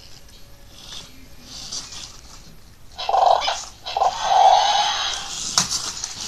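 Remote-control toy dinosaur playing its electronic growl twice, a short one and then a longer one, with a few sharp clicks near the end.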